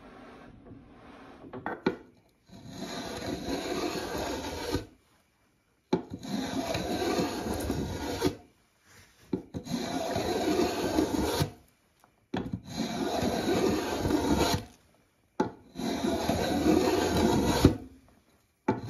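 Hand plane shaving the faceted outside of a hollow staved wooden mast, rounding it: five long strokes of about two seconds each, with short gaps between them.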